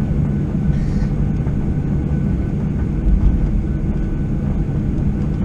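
Steady low rumble and hum in the cabin of a Boeing 737-800 taxiing on the ground, its CFM56-7B engines at low taxi power.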